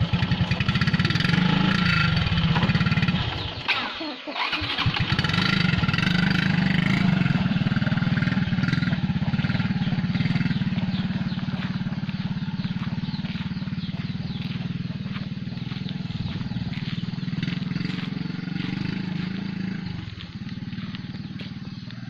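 Motorbike engine running and pulling away under load, with a brief dip about four seconds in, then running steadily and slowly fading as it moves off.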